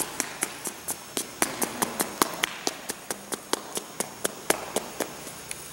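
Rapid, regular ticking: about four or five sharp clicks a second, which stop shortly before the end.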